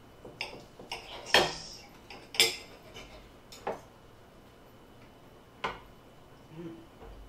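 Metal knives and forks clinking and scraping against plates as food is cut, in a handful of irregular sharp clinks. The loudest come about one and a half and two and a half seconds in.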